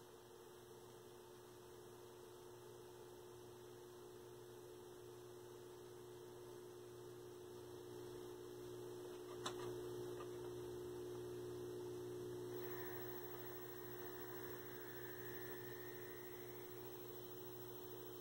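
1966 Admiral PK1369 vacuum-tube black-and-white TV humming steadily as it warms up just after switch-on, the mains hum growing gradually louder. One sharp click about halfway through.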